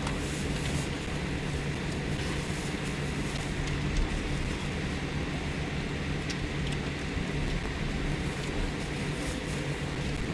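Boeing 787 cabin noise while taxiing: a steady rumble and low hum of the engines at taxi power and the wheels rolling on the taxiway, with a few faint ticks and a slight bump about four seconds in.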